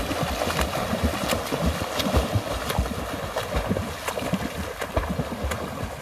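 Water splashing and churning from a swimmer's quick front-crawl strokes, with irregular sharp slaps of the arms hitting the water, which ease off near the end. Low wind rumble on the microphone runs underneath.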